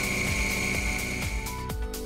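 Background music over a lathe spinning a clock dial pillar, with a steady high whine that stops about one and a half seconds in.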